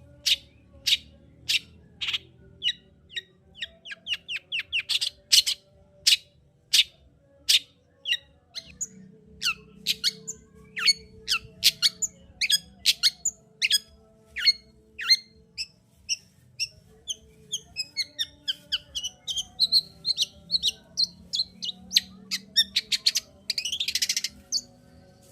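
Long-tailed shrike (cendet) calling in a fast run of sharp, high, downward-sweeping notes, several a second, that breaks into a denser chatter in the second half. It ends with one loud, harsh, rasping call near the end.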